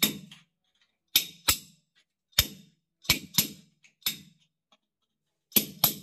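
An adjustable wrench clanks against the metal flush-valve fitting in the wall as it is worked round: about ten sharp metallic knocks, several in quick pairs, each with a short ring.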